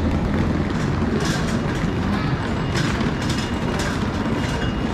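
Train running with a steady low rumble, a few scattered clicks and a faint high tone over it.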